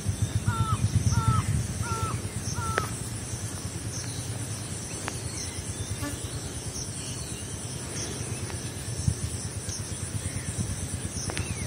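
A bird gives four short hooked calls in quick succession, about two-thirds of a second apart, in the first three seconds. A low rumble underlies them and is strongest while the calls sound.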